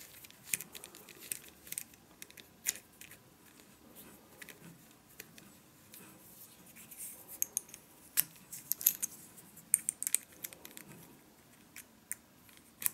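Scattered small metallic clicks and clinks of flat wrenches on the collet nut of a micro air die grinder as a mounted bit is being changed.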